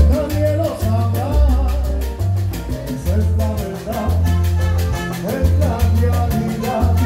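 Live salsa band playing: a stepping bass line under conga and bongo drums and other hand percussion keeping an even beat, with voices singing over it.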